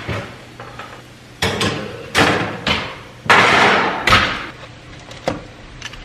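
Kitchen handling sounds: a series of knocks and clatters, with one longer rushing noise about three seconds in and a sharp click near the end, over a faint steady low hum.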